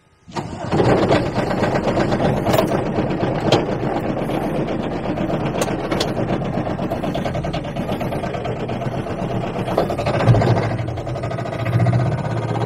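Aixam Mega Multitruck's small Kubota diesel engine starting at the turn of the key and then running, heard from inside the cab. From about ten seconds in its note goes deeper and stronger as the van pulls away.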